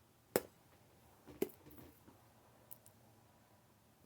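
A few light clicks from food being handled in a kitchen: a sharp click just after the start, another about a second later, then two faint ticks.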